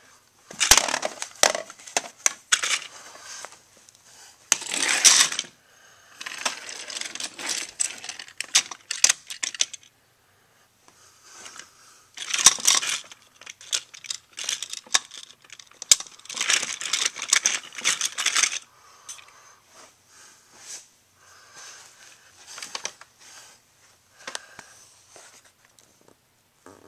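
Plastic TOMY toy train wagons and vans being shunted by hand along plastic track, rattling and clicking as they roll and couple together, in irregular bursts of clatter with sharp clicks between.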